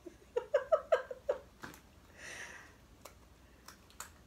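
A woman's short giggling laugh, a quick string of 'ha' bursts lasting about a second, followed by a breathy exhale. A few light sharp clicks come near the end as scissors are worked.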